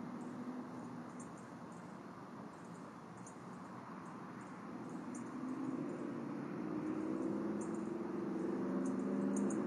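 Outdoor ambience at the nest microphone: a steady low rumble that grows louder over the second half, with faint, short high-pitched chirps scattered throughout.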